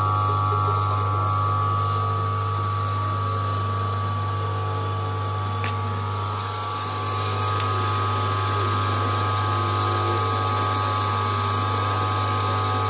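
Single-phase 220-volt capacitor-run electric motor of a class 10-B industrial fur sewing machine running steadily and driving the machine by belt, with a deep steady hum and a higher whine. It runs without problems. A couple of faint ticks come through over it.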